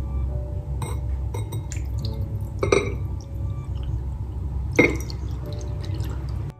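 Liquid poured from a glass mug into a ceramic mixing bowl, with small clinks and scrapes of glass and crockery being handled. Two sharp clinks, the loudest sounds, come about three and five seconds in.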